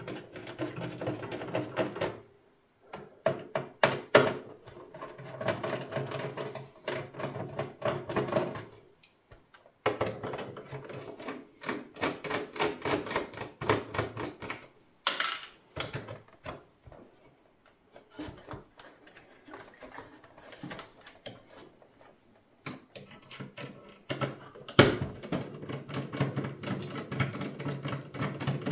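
Screwdriver backing screws out of a desktop PC motherboard in its steel case: several stretches of rapid clicking and grinding metal, with a few sharper knocks, one bright click about fifteen seconds in, and a quieter lull before the last stretch.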